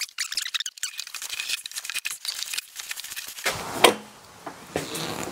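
Handling noise as a heavy battery is loaded and strapped onto a hand cart: rapid, irregular clicks and rattles, then a single louder click about four seconds in.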